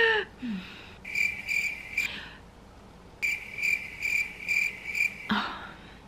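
Cricket chirping in regular high chirps, about two a second: a short run, a brief gap, then a longer run that stops abruptly.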